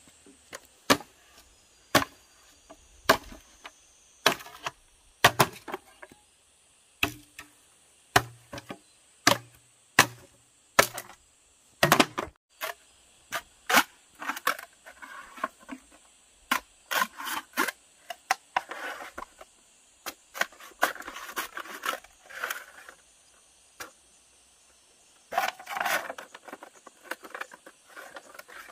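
Sharp knocks on wood, about one a second, some with a hollow low ring, then a longer stretch of scraping and rustling with scattered knocks.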